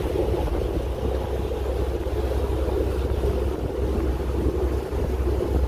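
Boat engine running steadily, a low rumble with no change in pace, with wind on the microphone.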